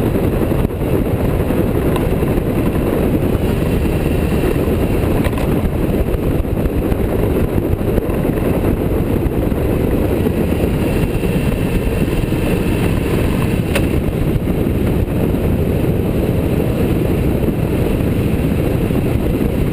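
Motorcycle riding at steady road speed, its engine and the rushing wind on the bike-mounted microphone blending into one continuous low roar.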